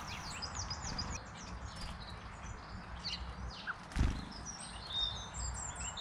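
Small garden birds chirping with short high calls, a quick run of them at the start and more near the end, over a low outdoor background rumble. A soft thump about four seconds in.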